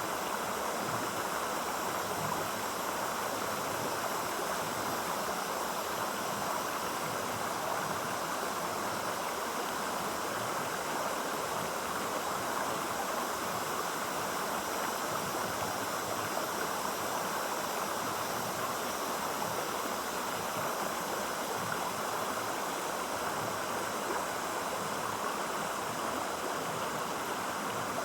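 Stream water running steadily, an even flowing sound with no breaks or changes.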